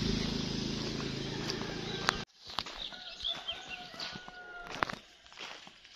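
A small motorcycle engine running with a low hum that fades, then breaks off abruptly. After that, a rooster crows faintly, with chickens clucking and small birds chirping.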